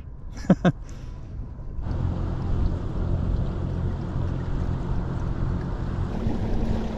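Wind buffeting the microphone and water washing past a fishing kayak under way, with the low steady hum of its electric trolling motor. The noise comes in suddenly about two seconds in, and a second steady hum note joins near the end.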